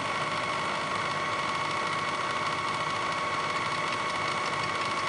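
Bridgeport milling machine running in low gear, its fly cutter spinning at about 250–300 RPM and taking a light facing cut of about five thousandths while the power feed moves the table. A steady machine hum with an even whine throughout.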